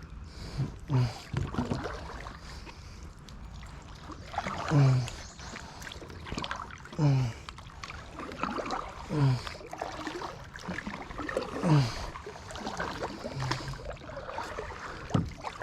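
A kayak being paddled, with a stroke about every two seconds. Each stroke carries a short, low sound that drops in pitch, over a steady wash of water.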